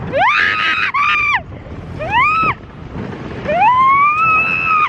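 Riders screaming on a roller coaster: four high rising screams, the last held longest and cut off sharply, over a rush of wind noise.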